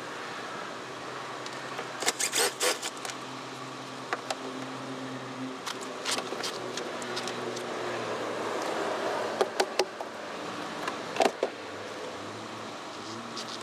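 Scattered knocks and scrapes as the engine air filter and its plastic housing on a Kenworth T680 are handled: several in quick succession about two seconds in, more near the end, over a steady low vehicle hum.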